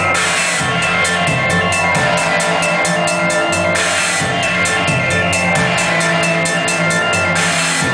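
Live noise music from electric guitar and electronics: a loud, dense wall of distorted sound with held tones over a fast pulse of about eight beats a second, which drops out briefly twice.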